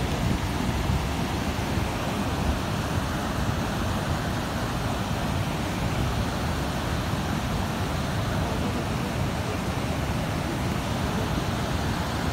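The Swat River in flood, a fast muddy torrent carrying debris, rushing past in a steady, unbroken wash of water noise.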